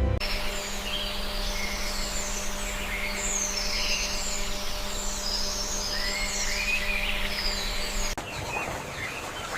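Several rainforest birds chirping and warbling over a steady hiss of forest ambience. About eight seconds in, the sound cuts abruptly to a different, denser hiss with fewer calls.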